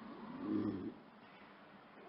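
Lynx giving one short, low call that rises and then falls in pitch, lasting under a second.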